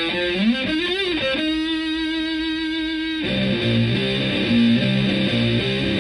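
Stratocaster electric guitar through an Elk Super Fuzz Sustainar fuzz pedal into a Fender Twin Reverb-style amp, playing a fuzzy lead. It opens with strings bent up and back down, then holds one long sustained note for nearly two seconds that cuts off abruptly, then goes into a run of quick riffing notes.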